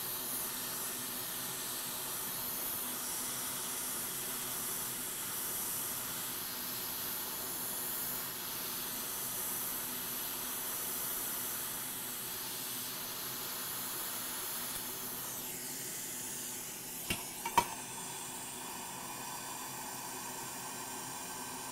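Hot air rework station blowing a steady hiss of hot air onto a soldered-on metal shield on an iPad logic board to melt its solder. The hiss changes about three quarters of the way through, and two light clicks follow soon after.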